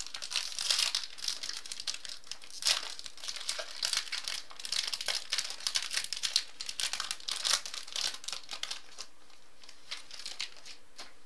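Wrapper of a football trading-card pack being torn open and crinkled in the hands: a run of crackling, with sharp tearing spikes. The crinkling dies down about nine seconds in, leaving a few faint clicks.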